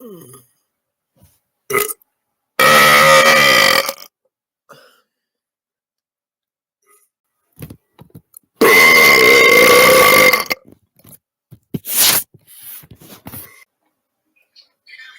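Two long, loud burps from a person, each held on a steady pitch: the first starts about two and a half seconds in, and the second, a little longer, about nine seconds in. Shorter sounds come just before the first and a couple of seconds after the second.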